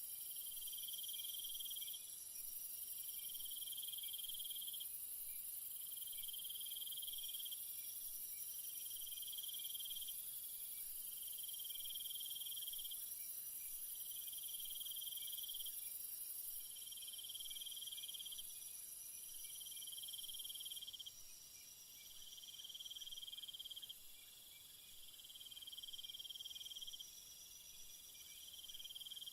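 Jungle insect chorus: a steady high-pitched drone with a shrill trill that comes and goes in regular pulses about every two and a half to three seconds. The highest hiss thins out about two-thirds of the way through.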